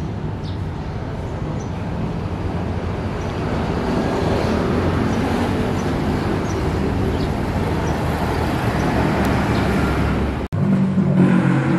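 Steady motor-vehicle noise: a low engine hum under a rushing roar. It drops out suddenly for a moment near the end and comes back louder.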